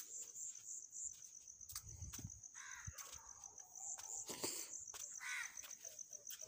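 A cricket's steady, high-pitched pulsing trill, with a few crows cawing a handful of times and faint pencil clicks and scratches on paper.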